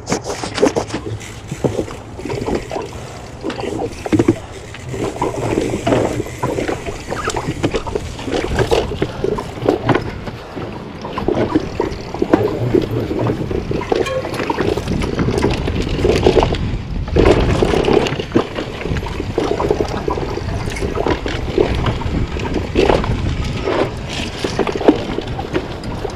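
Mountain bike on a rough, rocky trail: tyres rolling over rock and the bike rattling, a dense run of knocks and clatter.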